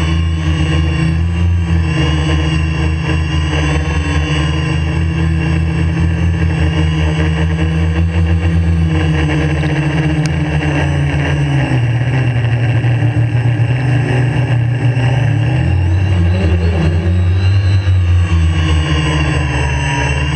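Quadcopter's electric motors and propellers running with a steady multi-tone hum and whine, heard from the camera on the drone itself. The pitch wavers and dips lower for a few seconds in the second half as the motors change speed.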